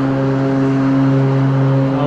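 Battery-powered stand-on lawn mower running as it cuts grass, its electric motors giving a steady whine of several held tones.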